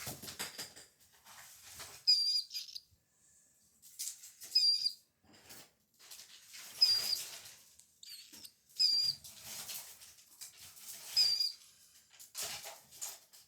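Baby killdeer chicks peeping: short, high, wavering peeps repeated every two seconds or so, mixed with rustling and shuffling noise as they are handled and fed.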